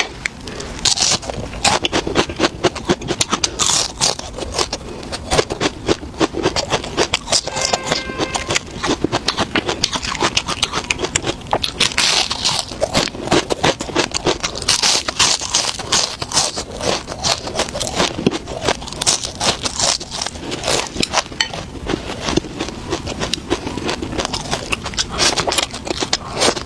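Close-up crunching and chewing of crispy fried fish: a dense, continuous run of crisp crackles.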